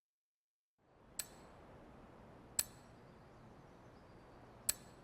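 Three short, sharp metallic clicks with a brief ring, irregularly spaced, over faint background hiss.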